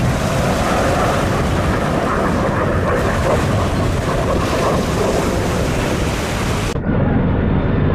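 Wind buffeting the microphone over choppy sea water, with a rigid inflatable boat running close by and churning spray at its stern. The noise cuts off abruptly near the end to a duller rumble.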